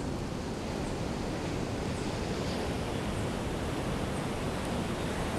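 Ocean surf washing steadily on a beach, a continuous even rush with no single wave standing out.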